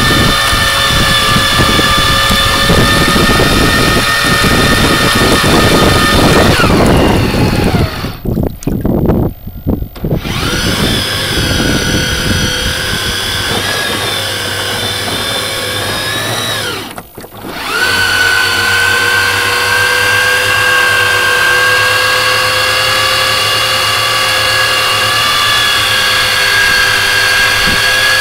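The boat's drive motor running with a high, steady whine over water and wind noise. Twice the whine drops away and nearly stops, then winds back up: a long fall of pitch about a third of the way in, and a short dip a little past halfway.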